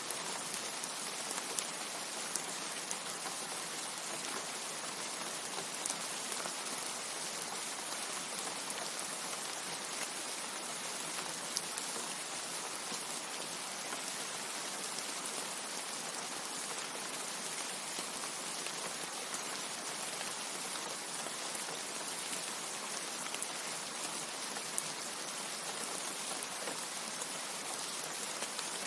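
Steady rain, a constant hiss with scattered sharper drop ticks, without thunder.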